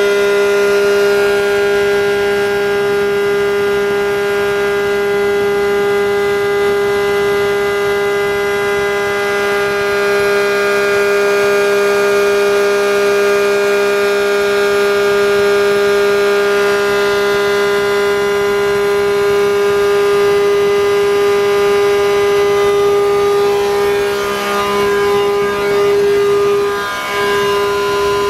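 The blower of a 1981 ACA Hurricane 130 MKII outdoor warning siren runs on its own at full speed, turning in the correct direction. It gives a loud, steady pitched drone with many overtones, which wavers briefly near the end.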